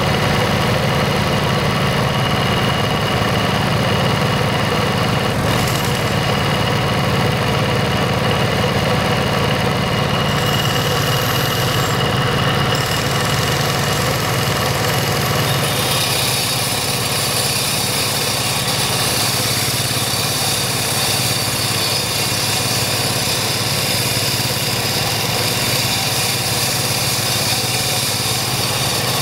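Walk-behind concrete cutter driven by a Kubota single-cylinder diesel engine, running steadily with a strong low rumble. A little past halfway a steady high hiss joins in as the blade grinds into the road surface.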